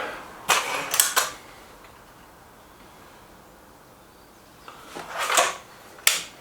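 Air rifle being handled between shots, with sharp mechanical clicks and knocks of cocking and loading: three quick clicks about half a second in, a short scraping noise about five seconds in, and another click near the end.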